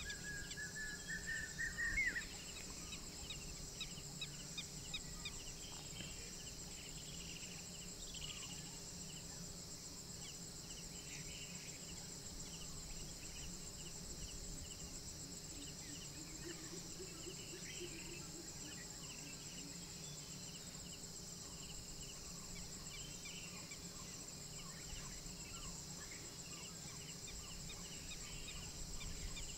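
Night forest chorus of insects, a steady high-pitched ringing drone with scattered short chirps. A rising call climbs in pitch and ends abruptly about two seconds in.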